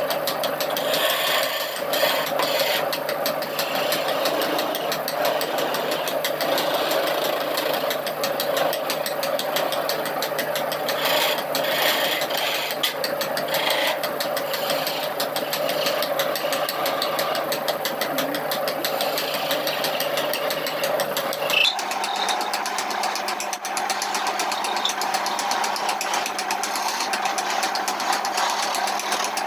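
Electric power tool running steadily with a constant motor whine and a fast rattle; about 22 seconds in it changes abruptly to a slightly higher, steady note.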